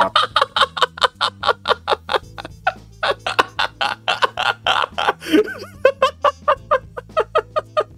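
A man laughing hard in a long run of quick, breathy bursts, about five a second, over quiet background music.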